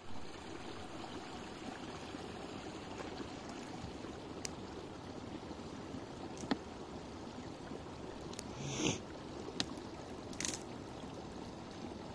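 Steady rushing of a mountain stream, with a few scattered clicks and a short louder scrape just before nine seconds in.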